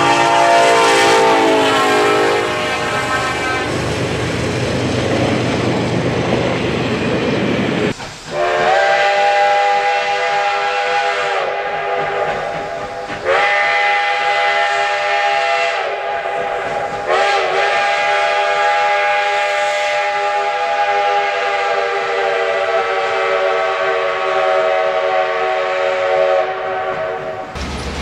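A locomotive air horn sounds as a train passes, its pitch dropping, followed by the rumble of the passing train. About eight seconds in, a steam locomotive whistle starts blowing several long blasts, each sliding up in pitch as it opens.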